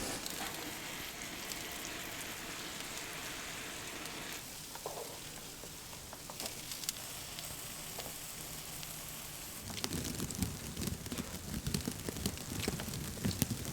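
Sliced king oyster mushrooms sizzling steadily in a frying pan. The hiss drops a little about four seconds in, and from about ten seconds in there are irregular low knocks and rustles of handling.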